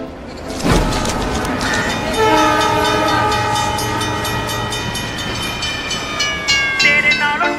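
Train horn sound effect in a song intro: a thump, then a horn chord held over a low rumble, sliding slowly down in pitch for several seconds, before the music comes in near the end.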